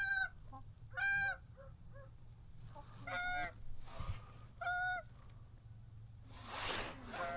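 Goose honks: about five single calls, a second or two apart. A burst of rustling hiss comes in near the end.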